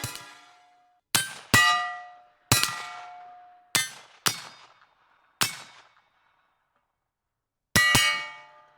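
Bullets striking a steel gong target: about eight sharp metallic clangs, each ringing and fading away, some coming in quick pairs, with a gap of about two seconds before the last pair.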